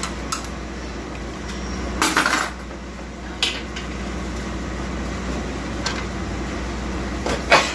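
Metal parts of a Toyota Harrier automatic transmission's clutch pack clinking and scraping as it is taken apart: a few separate knocks, a longer scrape about two seconds in, and a loud double clink near the end, over a steady low hum.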